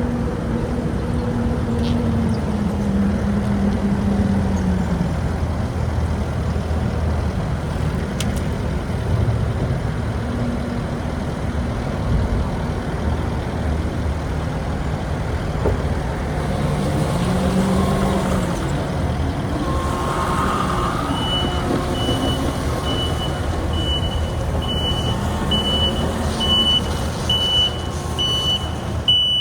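Kubota diesel engine of a Takeuchi TL10-V2 tracked skid steer running, its pitch rising and falling a few times as it works. About two-thirds of the way in, a backup alarm starts beeping about once a second as it reverses.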